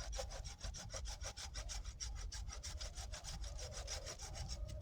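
Folding hand saw cutting through a wooden branch in fast, even back-and-forth strokes, the sawing stopping just before the end.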